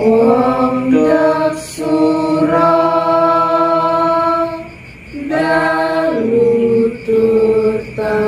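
Voices singing a Javanese tembang macapat Pangkur in unison without accompaniment: slow, long-held notes that slide between pitches, in three phrases with short breaths between them.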